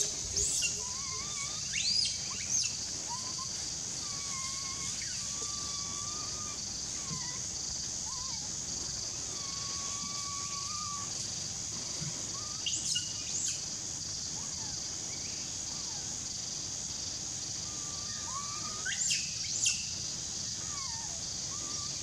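Forest ambience: a steady high drone of insects runs throughout, with short whistled bird calls scattered across it. Clusters of quick, sharp high chirps come near the start, about 13 seconds in, and again about 19 to 20 seconds in; these are the loudest parts.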